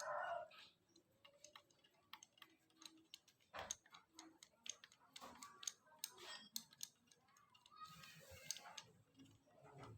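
Faint, scattered light clicks and taps at irregular intervals.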